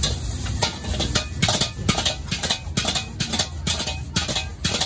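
Metal ladle striking and scraping a metal wok while stir-frying fried rice, in quick irregular strokes of about four or five a second, over a low steady rumble.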